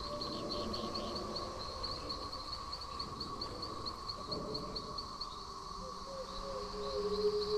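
Ambient background soundtrack: a high insect-like chirp repeating about four times a second over held low tones, with a few short gliding notes about six seconds in.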